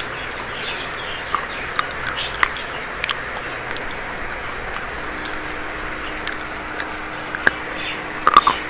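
Dry chalk being bitten and crunched close to the microphone: scattered sharp crunches over a steady hiss, with a quick cluster of louder crunches near the end.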